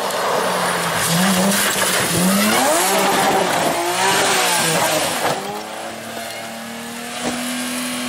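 Rally car engine revving hard, its pitch rising and falling, over a spray of gravel as the car slides off the road and crashes. After about five and a half seconds the engine settles into a steady, quieter running tone, with a single knock near the end.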